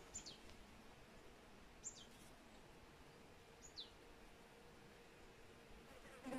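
Near silence broken by three faint bird calls, each a short high whistle falling in pitch, spaced a little under two seconds apart.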